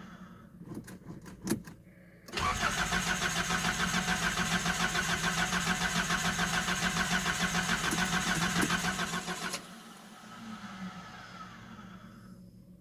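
A few light clicks, then a Nissan 720 pickup's starter cranks the engine for about seven seconds in a fast, even chugging rhythm, then stops without the engine catching. The owner takes the hard starting for a failing fuel pump.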